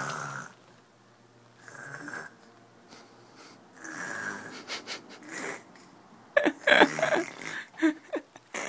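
A small child imitating snoring: drawn-out snore-like breaths every couple of seconds, then a quicker run of louder ones near the end.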